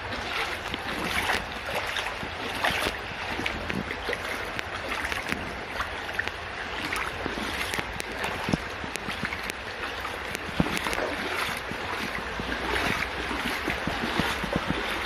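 Footsteps wading through a shallow brook, splashing again and again over the steady rush of flowing water.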